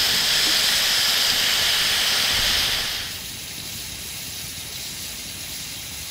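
Lamb chops sizzling in goose fat in a hot Ridge Monkey pan: a loud, steady sizzle that drops suddenly to a quieter sizzle about three seconds in.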